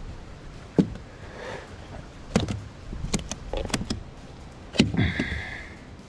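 Sharp clicks and knocks of fishing tackle being handled on a plastic kayak, and a short high whine near the end as a lure is cast.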